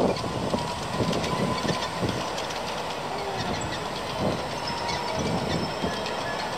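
Ride-on miniature H5 series Shinkansen train running on its small ground-level track, its wheels giving off irregular clicks and clacks over the rails.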